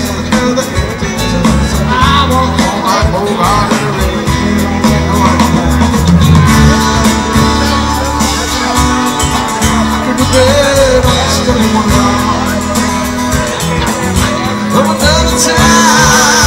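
Live rock band playing through a PA: drum kit, acoustic and electric guitars and keyboards.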